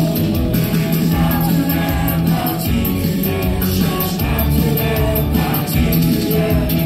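Live band playing loud through a PA: a male lead singer sings over electric guitar and a steady beat.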